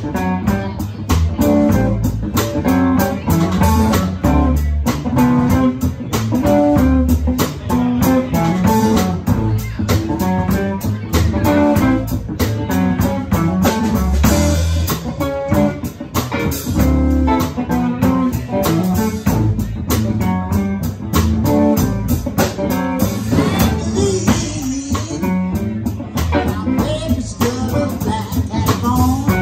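Live blues band playing: hollow-body electric guitar over electric bass and a drum kit keeping a steady beat.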